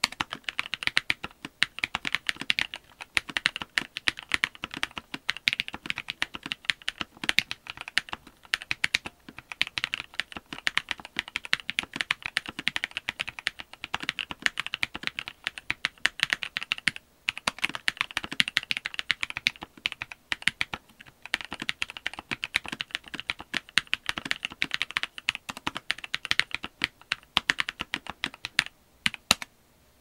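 Steady two-handed typing on a stock NovelKeys NK87 Entry Edition keyboard fitted with well broken-in Kailh Cream linear switches and Cherry-profile dye-sub PBT keycaps: a dense run of keystroke clacks with a couple of brief pauses past the halfway mark and a short break just before the end.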